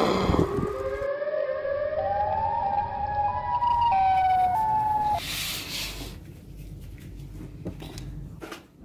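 Siren Head's siren call, a sound effect: a siren wail that rises in steps for about five seconds and then cuts off. A short rush of noise follows, then a few soft clicks.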